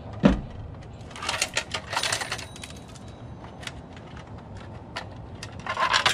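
Hard plastic parts of an old push-button telephone clattering and clicking as the phone is taken apart by hand: a single knock just after the start, then two bursts of clattering, one about a second in and one near the end, with a few single clicks between.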